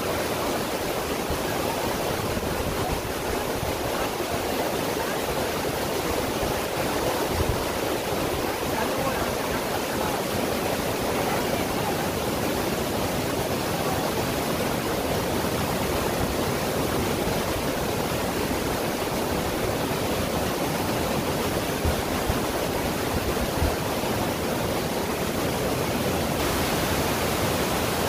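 Waterfall rushing steadily: a dense, even hiss of falling water with no let-up.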